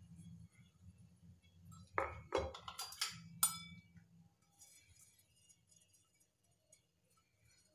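Small stainless steel bowls clinking as they are handled and set down on a wooden board: a few sharp knocks about two to three and a half seconds in, the last one ringing briefly. A faint low hum lies underneath for the first four seconds.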